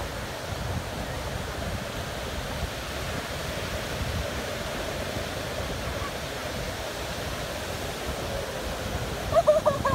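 Ocean surf breaking and washing in steadily, with wind rumbling on the microphone. A short, loud call cuts in near the end.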